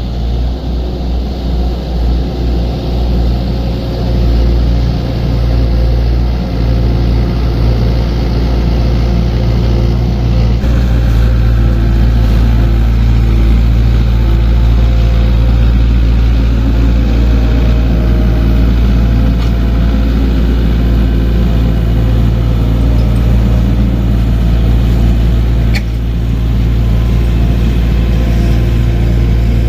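Diesel engine of a small earthmoving machine running steadily under load with a deep, steady drone. The sound shifts abruptly about a third of the way in, and there is a brief click near the end.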